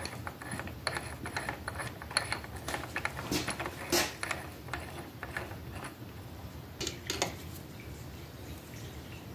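Steel parts clicking, clinking and scraping as an AXA wedge-type quick-change tool post is seated on the lathe compound's stud and its nut threaded down. The clicks are irregular and thickest in the first half, with a few sharper knocks about three to four seconds in and again around seven seconds, then it goes quieter.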